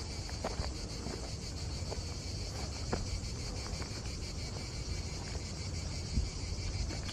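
Crickets chirping steadily in the summer grass, with scattered soft footsteps on the path.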